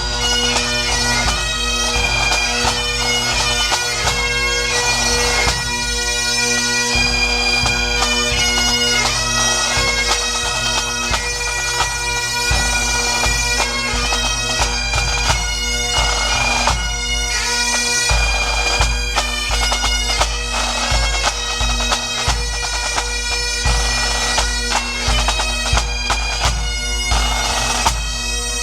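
Music: a reedy melody played over steady, unchanging drone tones.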